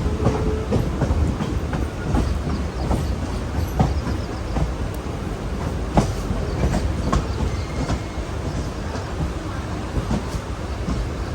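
Mumbai suburban local train rolling along, heard from on board: a steady low rumble with irregular wheel knocks over rail joints and points, one sharper knock about six seconds in.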